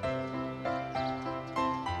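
Background piano music, notes changing every few tenths of a second.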